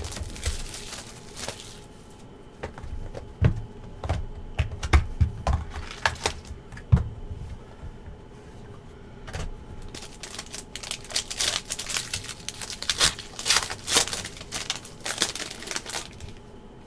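Hands opening a box of football trading cards: irregular taps and knocks as the cardboard box is handled, then from about ten seconds in the crinkling and tearing of a foil card-pack wrapper being opened.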